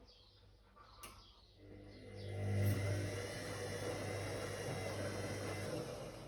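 Whirlpool AWOC 8283 washing machine: a click about a second in, then its motor starts with a rising hum, runs steadily for about four seconds and winds down near the end.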